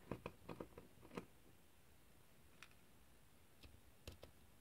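Near silence with a handful of faint clicks and taps from two Samsung Galaxy Tab 3 battery packs being handled: several in the first second, a few more near the end.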